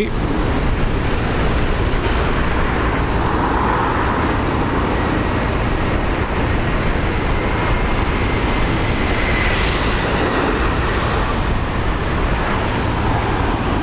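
Storm-force wind buffeting the microphone in a steady, heavy rumble, with the jet engines of an Airbus A320 on final approach running under it and a faint engine whine rising out of the noise about halfway through.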